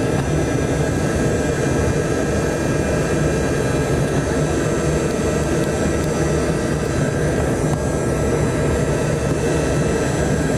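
Steady cabin noise of a Yakovlev Yak-40's three rear-mounted Ivchenko AI-25 turbofan engines as the jet rolls along the ground. It is a loud, even rumble with a faint high whine above it.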